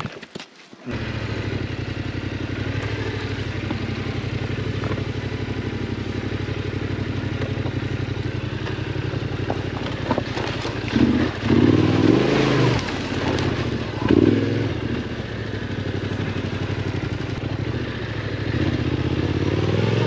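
Yamaha Ténéré 700's 689 cc parallel-twin engine with a Yoshimura RS-12 slip-on exhaust, running steadily off-road. It gets louder throttle bursts about eleven to fourteen seconds in. The sound drops out briefly at the very start.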